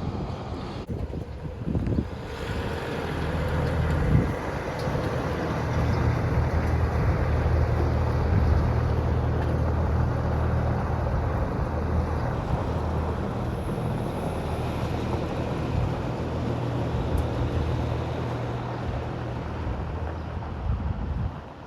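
Heavy truck's diesel engine running with road noise, growing louder over the first several seconds and then slowly fading.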